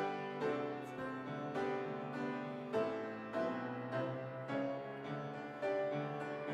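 Solo grand piano playing, with notes and chords struck about twice a second, each ringing and fading.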